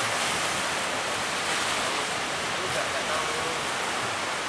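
Ocean surf breaking and washing onto the beach: a steady rush of waves, with faint distant voices underneath.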